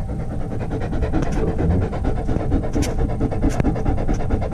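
German Shepherd panting steadily right at the microphone, with rubbing from fur and handling and a few light clicks.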